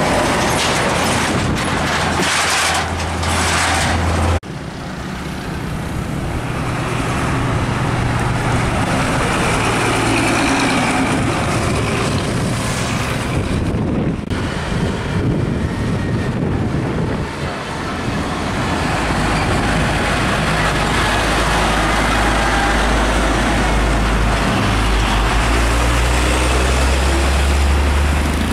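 Heavy diesel trucks passing one after another on a highway, engines running over tyre and road noise. The sound changes abruptly about four seconds in and again midway. A deep engine rumble builds and holds through the last third.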